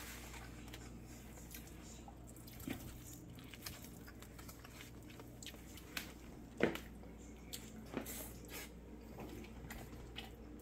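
A fork clicking and scraping in a plastic meal tray as it cuts into a plant-based burger patty, with some chewing. A few sharp clicks stand out, the loudest about six and a half seconds in, over a steady low hum.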